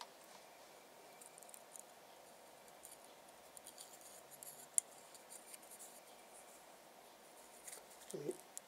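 Faint scratching and light clicks of fingers handling and rubbing a small 3D-printed plastic gear, with one sharper click about five seconds in, over a faint steady hum.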